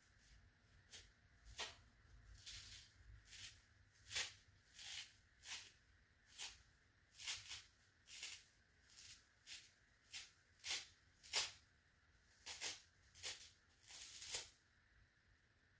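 Foam scrub sponge with a scouring-pad layer being torn apart by hand: a run of short, crisp ripping crackles, one or two a second, uneven in spacing and strength.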